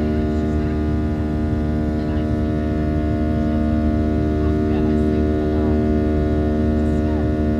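Cabin noise of a Boeing 737-700 with its CFM56-7B jet engines running at steady power: a loud, even drone of several steady tones over a low rumble. Faint voices are heard in the background.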